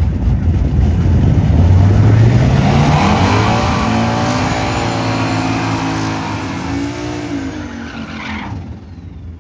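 Drag race car launching and accelerating hard, its engine note climbing in pitch through the gears before fading away near the end as it runs off down the strip.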